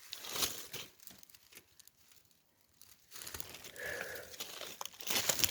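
Dry leaves and brush rustling and crackling as someone works the ground by hand among plants and stones. There is a burst near the start, a few short clicks and a brief lull, then steadier rustling from about three seconds in.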